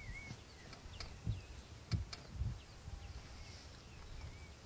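African elephant herd moving and feeding through tall grass: low thuds and rustling, the loudest about two seconds in with a sharp click, while birds call with short arched whistles in the background.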